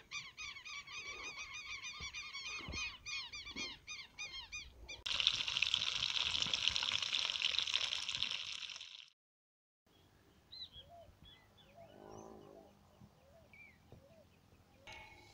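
Birds calling over and over in a fast series of sharp, rising-and-falling notes for about five seconds. Then fish pieces frying in oil in a pan over a wood fire: a loud steady sizzle, the loudest sound here, which cuts off suddenly about nine seconds in, followed by faint scattered bird calls.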